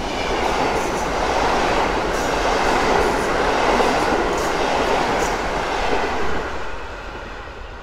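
Long train of PKP Intercity passenger coaches running past close by at speed: a steady rush of wheels on rail with faint rail clatter. It dies away near the end as the last coaches go by.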